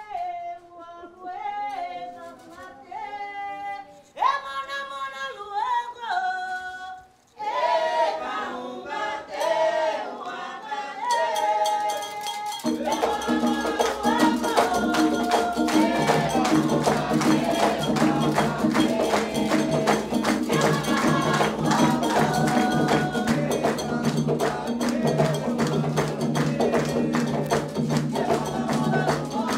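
Candomblé ritual song: a voice sings a chant on its own, more voices join in, and about halfway through drums and percussion come in loud and steady under the singing.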